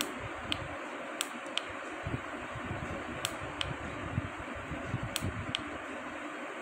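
Steady fan-like hiss of a small room, with a few brief sharp clicks, mostly in pairs, from handling a fingertip pulse oximeter.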